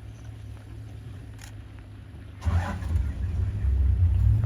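A vehicle engine starts a little over two seconds in with a short rough burst, then runs with a louder low rumble.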